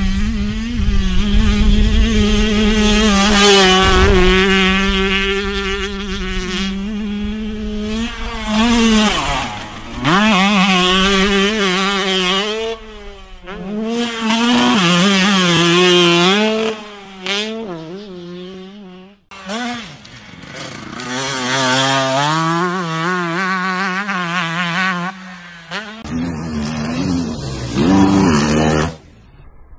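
Motocross dirt bike engines revving hard, their pitch climbing and dropping again and again as the throttle is opened and shut. The sound breaks off abruptly twice as one clip gives way to the next.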